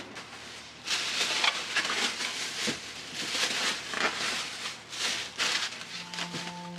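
Thin plastic shopping bags rustling and crinkling as they are handled and set down, in irregular bursts.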